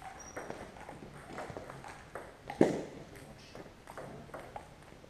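Table tennis rally: the celluloid-type ball clicking off paddles and bouncing on the table in a quick irregular series, with one much louder knock about two and a half seconds in.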